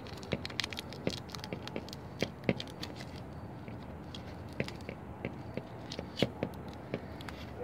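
Scattered small clicks and crinkles of hands wrapping sticky tape around the cut ends of rattail cord.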